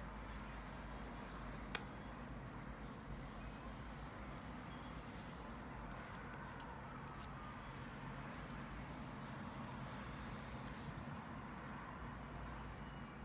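Steady low room hum with faint scattered small clicks from hands working on laptop parts, and one sharp click about two seconds in.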